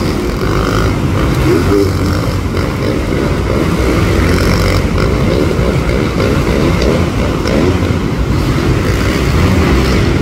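Several supercross motorcycles running on the dirt track, their engines overlapping in a steady, loud drone.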